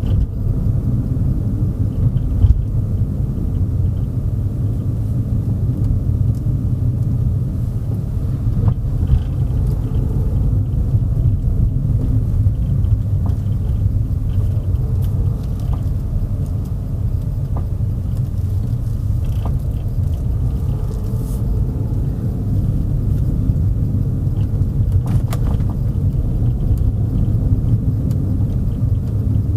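Steady low rumble of a car driving, heard from inside the cabin: tyre and engine noise, with a few faint clicks and knocks.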